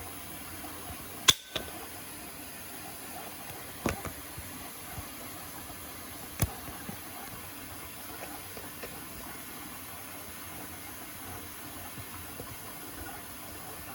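Beko WTK104121A washing machine filling with water for a rinse: a steady hiss of incoming water, with a few sharp clicks, the loudest about a second in.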